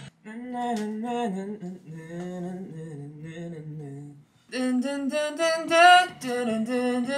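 A voice humming a wordless melody idea for a guide vocal, sliding between notes. A softer first phrase trails off, and after a short break about four and a half seconds in a louder phrase begins.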